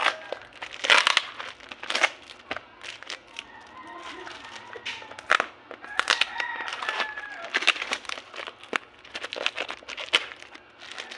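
Packaging being handled and opened: irregular crinkling, rustling and tearing, with many sharp crackles.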